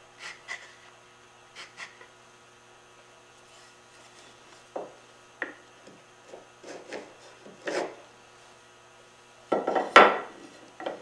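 Double-pin mortise gauge scratching scribe lines into curly maple, in a few short scrapes with light knocks as the gauge and board are handled. The loudest scrape comes near the end.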